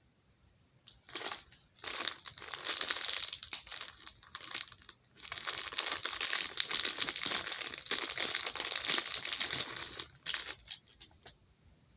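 A plastic monkey noodle stretch tube crinkling as it is pulled and handled. It is a dense, crackly run of rapid small clicks that comes in two long stretches with a short break between them, then a few scattered ticks.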